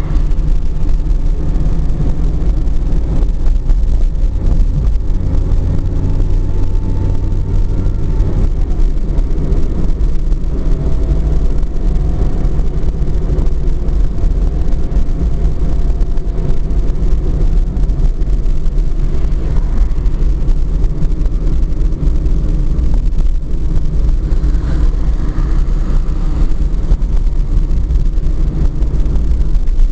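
Car engine and road noise heard from inside the moving car: a steady low rumble, with a faint engine note that climbs and then drops about eight and a half seconds in.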